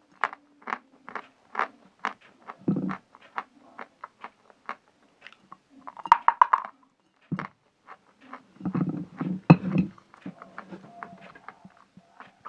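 A person chewing a dried piece of edible chalk close to the microphone: many short, crisp crunches and mouth clicks, with denser bouts of chewing about three seconds in and again around two-thirds of the way through.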